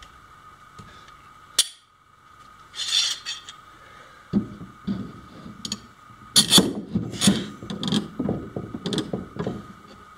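One-handed trigger bar clamps being fitted and tightened on a plywood sheet: a sharp click, a short scraping slide, then a long run of clicks and knocks as a clamp is worked shut against the wood.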